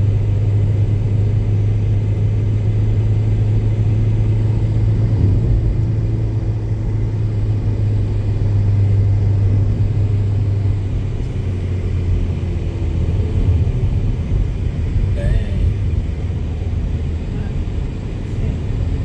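Steady low rumble of a car on the move, heard from inside the cabin: engine and road noise. The deep drone eases a little past halfway through.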